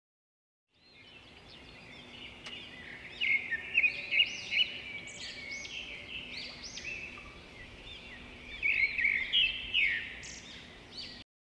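Birds chirping: many short, quick calls overlapping, rising and falling in pitch, with a faint steady hum underneath. The sound starts about a second in and cuts off abruptly near the end.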